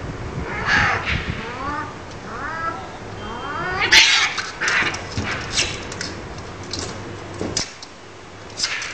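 Two cats fighting: a series of short rising yowls, then a loud screech about four seconds in followed by a string of sharp hisses and spits, with one more hiss near the end.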